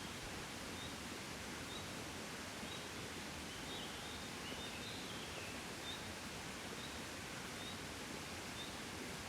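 Steady wind noise from a gentle breeze, with a small bird repeating a short high chirp about once a second and another bird twittering briefly midway.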